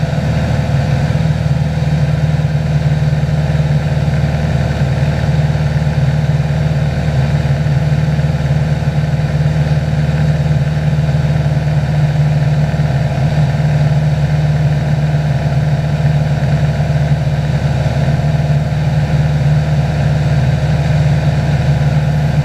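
Cessna 182's piston engine and propeller droning steadily in flight, heard inside the cabin.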